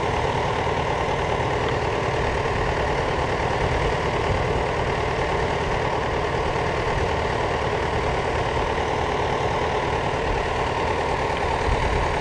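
An engine idling, a steady unbroken drone.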